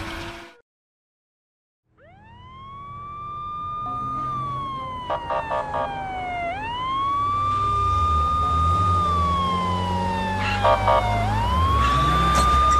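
Police car siren wailing in slow cycles, each rising, holding high, then gliding down, starting about two seconds in after a moment of silence. Twice a short burst of rapid blips cuts in, and low car engine noise builds underneath from about seven seconds in.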